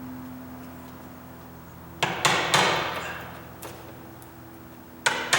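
Sharp knocks of a blade being struck into the wooden door jamb to cut out wood for the deadbolt: three knocks about two seconds in, a lighter one, then two more near the end, each with a brief rasping tail.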